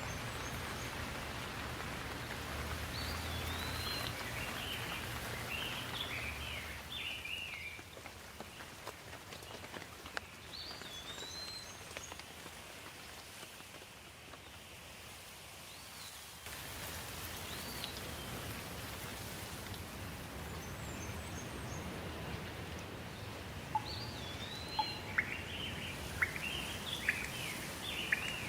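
Steady rain hiss with a songbird singing short phrases of quick whistled notes three times over it.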